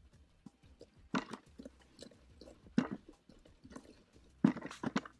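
Damp soil rubbed by hand through a riddle over a bucket: a handful of short, irregular crunching scrapes of soil and small stones against the mesh, the loudest about four and a half seconds in.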